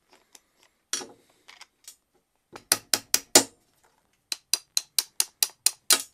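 Small hammer tapping a steel pin punch to drive the pins out of a Black & Decker power ratchet's head. The blows come as sharp metal taps: one about a second in, a group of four or five, then a quicker run of about nine taps at roughly four a second.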